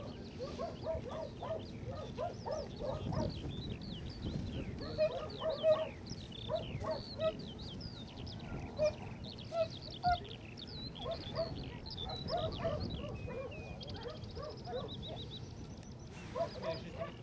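Many birds calling in open farmland, with short repeated calls and high twittering song throughout and a quick high trill near the end, over a low rumble of wind on the microphone.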